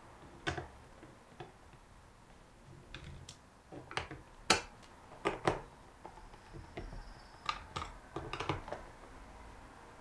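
About a dozen irregular clicks and taps of a screwdriver and small screws being worked out of a Kranzle M2000 pressure-washer trigger-gun housing and handled, the loudest tap about halfway through.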